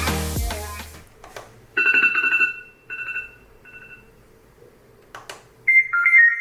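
An A6 alarm clock's speaker cycling through alarm sounds. A song fades out in the first second, then a two-note chime sounds three times, each softer. A click comes near the five-second mark, and a bright beeping ringtone melody starts about a second before the end.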